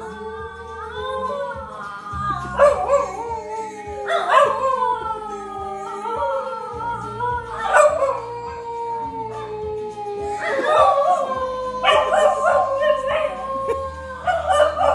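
Two dogs howling along to a song, with long howls that swell and slide down in pitch over the music's steady bass beat.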